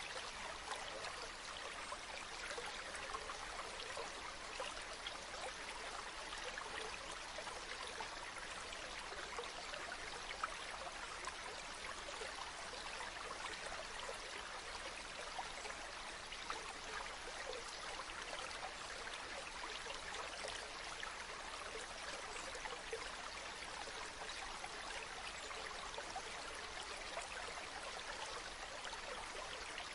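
Mountain stream running over rocks, a steady, even rush of water with many small splashes and trickles.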